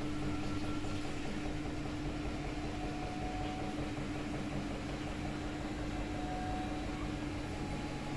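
Samsung WW80R421HFX front-loading washing machine running: a steady hum with a constant motor tone over a low rumble.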